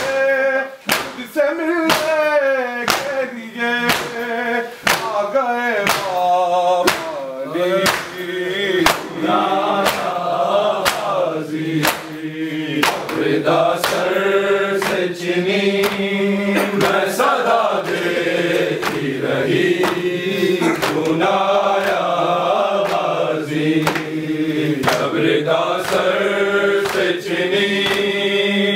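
A group of men chanting a noha (Muharram lament) together, with the steady rhythmic slap of hands beating chests (matam) keeping time.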